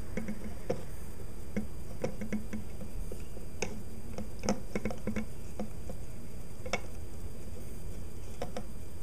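Irregular light clicks and taps of a paintbrush against a clear plastic shipping cup as it prods a tarantula in its paper-towel packing, a few taps louder than the rest.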